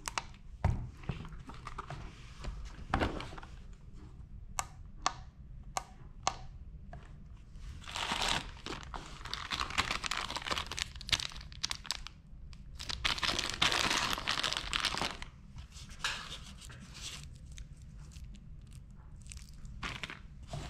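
Light clicks and knocks of the plastic multimeter case being handled, then the clear plastic bag around the test leads crinkling in two longer stretches as it is handled.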